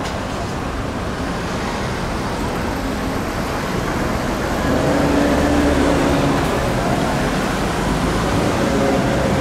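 City street traffic: a steady wash of passing cars, with a vehicle's engine hum growing louder about halfway through.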